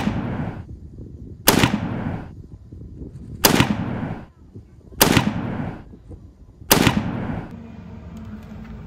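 Artillery-fire sound effect: five loud blasts, each dying away in a short rumble, about one and a half to two seconds apart.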